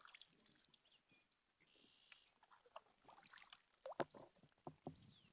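Faint water sounds from a kayak lying in still water: scattered small drips and light splashes from the kayak paddle, thicker in the second half, with one sharper drip about four seconds in.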